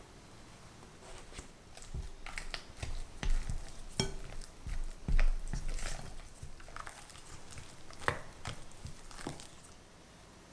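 Silicone spatula scraping and tapping against a glass mixing bowl while stirring mascarpone cream: irregular clicks and soft scrapes, busiest around the middle, with a couple of dull thumps. The sound dies down about a second before the end.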